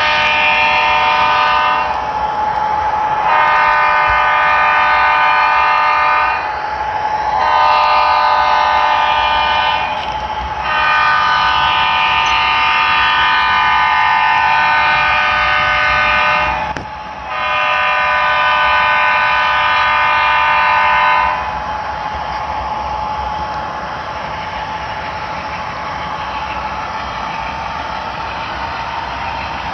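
Multi-chime diesel locomotive air horn from an HO-scale model locomotive's sound system, sounding five long blasts with short gaps, the fourth the longest, as the train approaches a road grade crossing. A steady running hum continues underneath and carries on alone after the horn stops about twenty seconds in.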